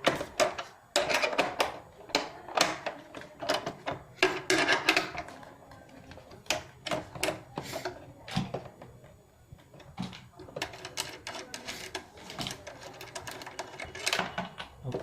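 Small metal bolts and fittings being handled on a treadmill's massager unit, clicking and rattling irregularly.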